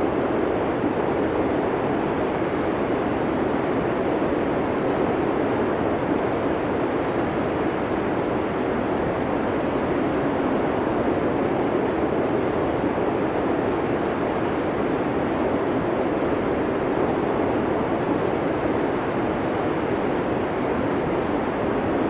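Steady blizzard wind: an even, unbroken rush of noise with no gusts or whistles.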